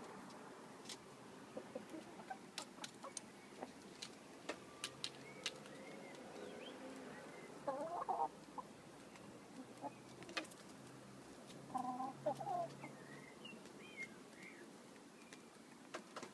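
Chickens clucking, with two louder calls about 8 and 12 seconds in and a few soft high chirps between. Many short sharp clicks are scattered throughout.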